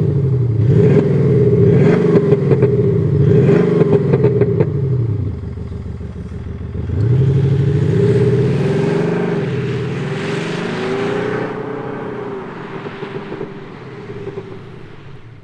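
Mercedes-Benz CLS 400d diesel fitted with an active sound module playing a synthetic V8 exhaust note in A-mode. It is blipped about four times standing, with crackles between the revs. About seven seconds in it pulls away, the pitch rising under acceleration, and it fades as the car drives off.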